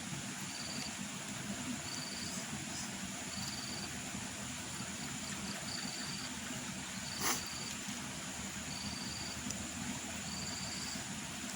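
Insects chirping: a short high chirp repeating about once a second over a steady high buzz and hiss. A single sharp click stands out about seven seconds in.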